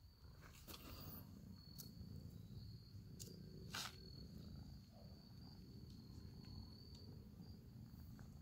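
Faint purring of a domestic cat being stroked, a low steady rumble, with a few soft clicks from handling and a faint high steady tone in the middle.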